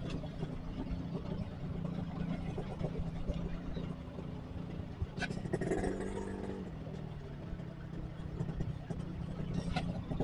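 Motorcycle engine running steadily amid street traffic, with another engine note swelling briefly around six seconds in.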